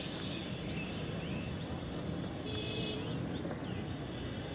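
Outdoor ambience: a steady low rumble with a few faint bird chirps scattered through it and one brief higher call about halfway.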